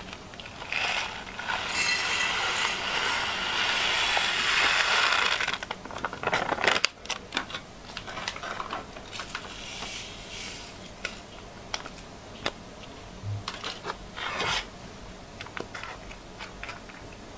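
Small toasted millet grains poured into a glass container, a steady grainy hiss for about five seconds. After that come scattered light clicks and rustles of a plastic bag being handled.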